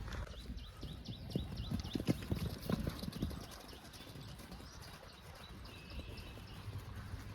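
Horse's hooves clopping on the ground in a few irregular steps, loudest in the first three seconds and then quieter.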